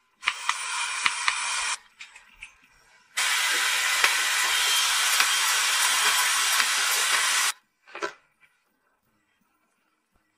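Dry food poured from a bag into a clear plastic storage box: a hissing rattle of many small clicks, first briefly, then in a longer pour of about four seconds. A short scrape or knock comes near the end.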